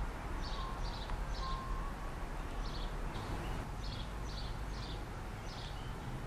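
Outdoor ambience: a small bird chirping, short high chirps in runs of two or three about half a second apart, over a steady low background rumble.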